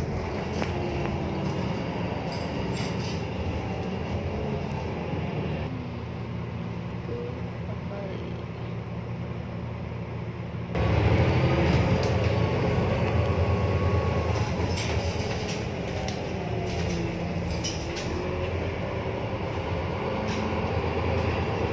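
Steady engine and road noise heard inside a moving city bus, with a low rumble and a faint wavering whine; it turns abruptly louder about eleven seconds in.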